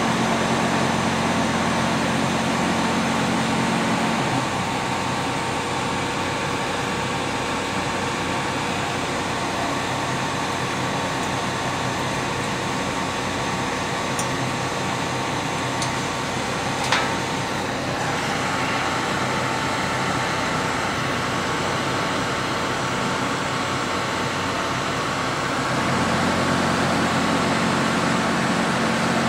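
Steady blowing rush of a heat gun melting the thermoplastic coating. A low hum drops away about four seconds in and comes back near the end, and there is one short click about two-thirds of the way through.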